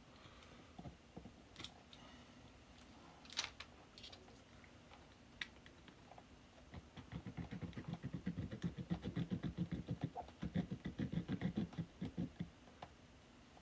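Small fret saw cutting through the solder joint that holds a humbucker pickup's metal cover to its base plate, in quick back-and-forth strokes, about five a second, through the second half. A few scattered light clicks come before the sawing starts.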